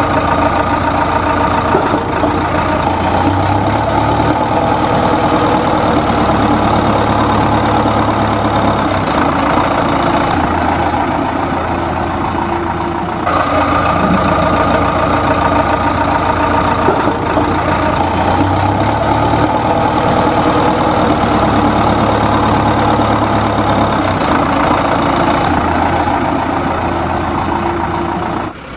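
Recorded engine sound effect idling with stepwise changes in engine pitch, laid over a toy backhoe loader; the same loop restarts about 13 seconds in.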